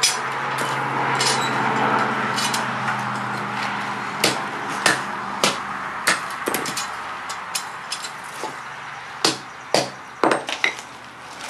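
A hand hammer striking a freshly smelted, still-hot iron bloom held in tongs: a dozen or so sharp, irregular blows that come closer together near the end. Under them a steady hum from the air blower fades over the first half.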